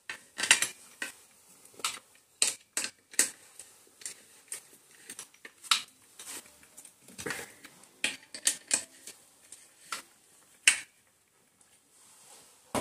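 Irregular sharp metallic clicks and clinks from a long socket spanner working the clutch centre nut on a Hero Honda HF Deluxe engine's clutch assembly.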